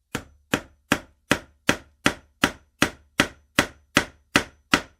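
Hammer striking repeatedly in a steady rhythm, about two and a half sharp blows a second, each dying away quickly.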